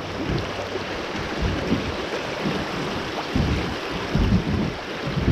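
Rushing water of a shallow river riffle around a kayak, with irregular gusts of wind on the microphone.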